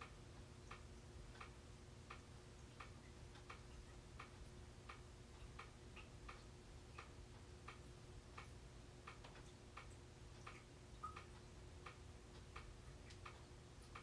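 Ceiling fan turning slowly with a faint steady hum and a regular light tick, about three ticks every two seconds.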